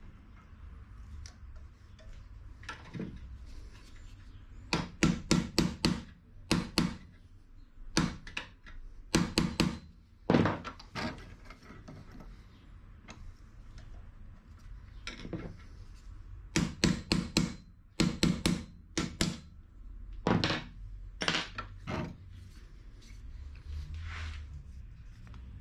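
Sharp metal knocks in quick bursts of several at a time, with single knocks between, as an old car shock absorber is worked apart in a bench vise, its steel piston rod and tube knocking against each other and the vise.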